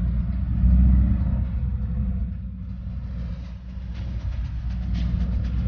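Steady low rumble of engine and road noise heard from inside a moving vehicle's cabin, with a few faint ticks near the end.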